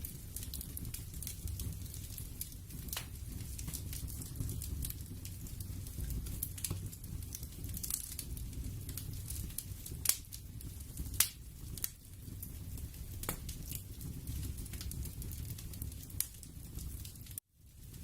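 Ambient background sound bed of soft, irregular crackles and pops over a steady low rumble. It cuts out for a moment near the end and fades back in.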